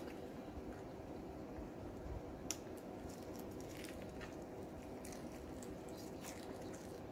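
Faint eating sounds: soft wet chewing with scattered small mouth clicks, over a steady low hum.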